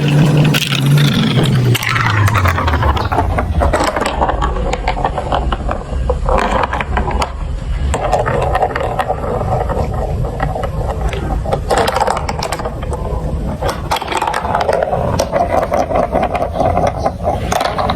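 Marbles rolling and rattling through plastic marble run tracks, a steady rolling rumble dense with small clicks as they run and knock along the pieces. A falling rumble sounds in the first couple of seconds.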